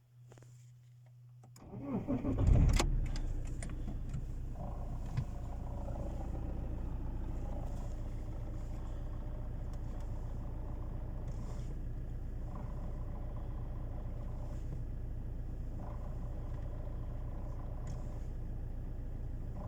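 Alfa Romeo 159 1.9 JTDm four-cylinder turbodiesel cranked and catching about two seconds in, then idling steadily in neutral. Over the idle, a higher-pitched hum from the gearbox comes and goes several times. It is the strange gearbox noise heard at idle with the clutch pedal released.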